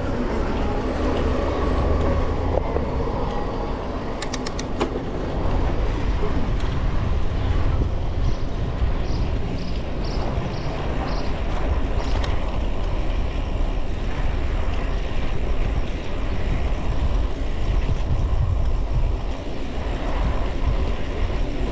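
Wind rushing over the action camera's microphone and road noise while cycling, with motor traffic around. A few sharp clicks come about four seconds in, and a run of short high beeps, about two a second, comes near the middle.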